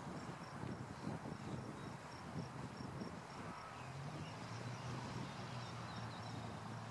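Cessna 152's engine running at taxi power, heard from a distance: a low rumble that settles into a steady drone about four seconds in. Crickets chirp faintly over it, about three chirps a second.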